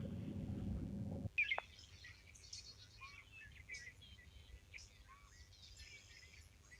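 A low rumbling noise that cuts off suddenly about a second in, followed by birds chirping: many short, quick high chirps and whistles.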